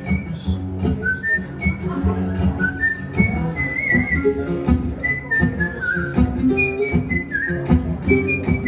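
A melody whistled over strummed acoustic guitar, in short notes that step up and down and waver near the end.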